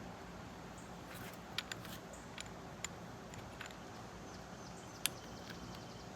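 Faint, scattered sharp clicks and small ticks of a drill chuck attachment being tightened by hand around a router grinding bit.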